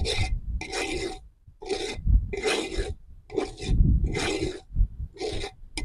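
Wire whisk stirring dry gram-flour and rice-flour batter mix in a metal bowl: a scratchy rasp with each stroke, repeating about one to two times a second, with a brief lull a little over a second in.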